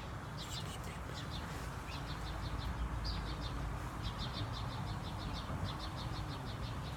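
A bird chirping in quick runs of short, evenly repeated notes, over a low steady outdoor rumble.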